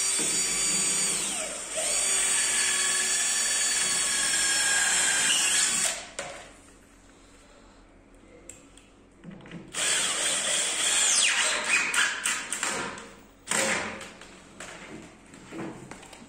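Cordless drill run hard into a laminated chipboard cabinet panel, one long run of about six seconds, then after a pause a second run of about four seconds and a short final burst.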